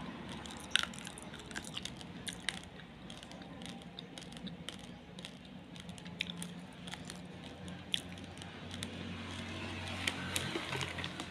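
Raw basmati rice grains crunched between the teeth while chewing: irregular sharp cracks and crackles. About ten seconds in comes a denser rustling crackle as a hand digs into the loose grains.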